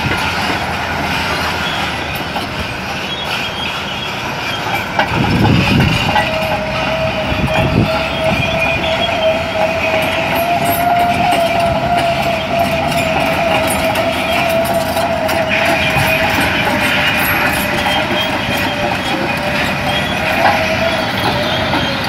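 Caterpillar D10N crawler dozer's V12 diesel running under load as it moves on its steel tracks, with clanking track noise. About six seconds in, a steady high whine joins it and holds for most of the rest.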